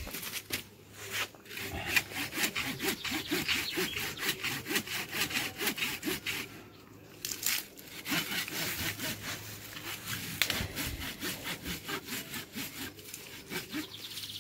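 Hand pruning saw cutting through stems and roots in the soil, rasping back and forth in quick, even strokes, with a short pause about halfway through.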